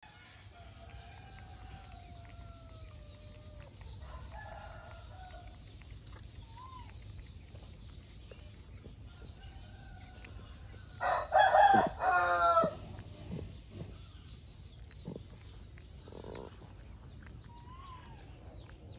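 A rooster crowing once, loud, about eleven seconds in, in two parts lasting under two seconds, over a quiet outdoor background with a few faint, thin calls.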